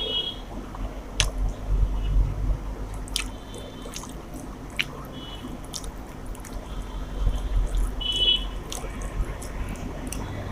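Close-up eating sounds of rice and chicken curry being chewed: wet squishing and smacking with scattered sharp mouth clicks.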